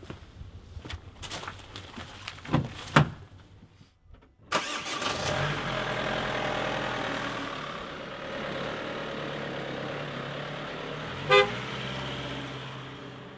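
Footsteps and two sharp thumps of a car door, then a car engine starting about four and a half seconds in and running steadily as the car moves off, with one short toot of the car horn near the end.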